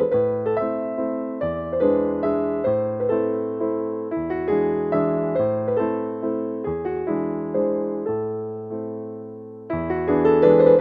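Background music: a gentle electric piano plays a run of repeated notes over a bass line, each note struck and then fading.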